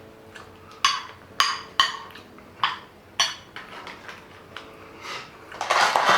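Cutlery clinking against dishes while eating, about five sharp clinks with a short ring in the first few seconds. Near the end comes a louder, longer scraping or rustling noise.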